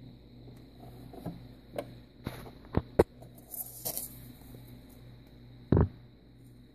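Handling noise: a few sharp clicks and knocks, a brief rustle, and one heavier thump near the end, over a steady low hum.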